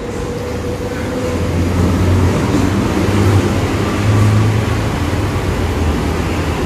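Low, steady mechanical rumble that grows louder over the first two seconds and then holds.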